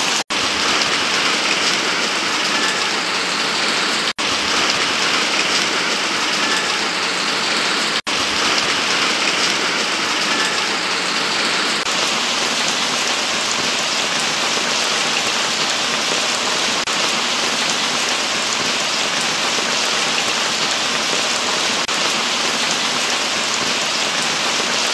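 Steady hiss of falling rainwater, cut off briefly three times in the first eight seconds.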